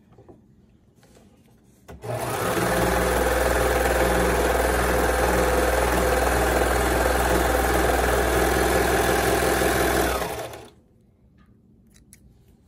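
Serger running at a steady high speed as it sews a second pass along a seam. It starts abruptly about two seconds in and runs down and stops about eight seconds later. A few soft snips of scissors follow near the end.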